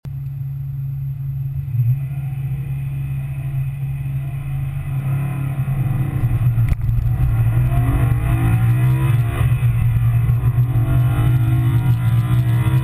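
BMW E92 M3's 4.0-litre V8 heard from inside the cabin, running at the start line and then accelerating hard from standstill about five seconds in, its revs climbing.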